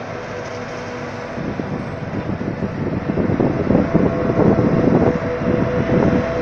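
Forage harvester and Fendt 936 Vario tractor running together while chopping maize into a silage trailer: a loud, steady machine drone with a held hum, growing louder about three seconds in.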